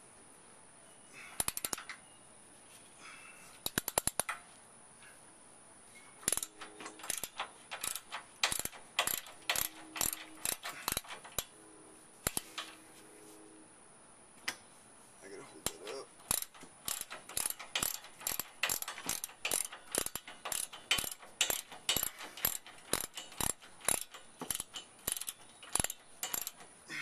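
Socket ratchet wrench clicking as it is worked back and forth on a side-step mounting bolt under a pickup truck. It comes in short clusters at first, then settles into runs of about two to three clicks a second, with a pause of a few seconds in the middle.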